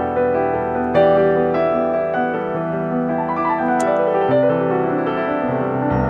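Background instrumental music led by piano, with held chords changing every second or two.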